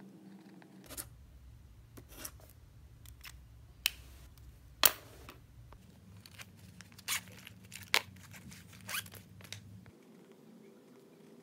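A series of short scratchy strokes and clicks from handling a pen and stationery on a desk, about eight in all, the loudest about five seconds in, over a faint steady hum.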